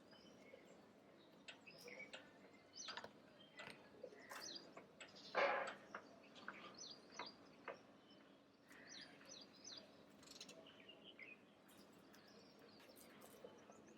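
Small birds chirping and calling, short high chirps scattered irregularly throughout, with one louder, longer sound about five and a half seconds in.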